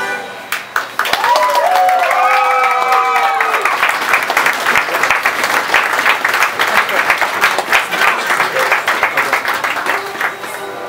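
Applause from a small crowd, starting about a second in, with a few high cheers and whoops mixed in early on; the clapping dies away near the end.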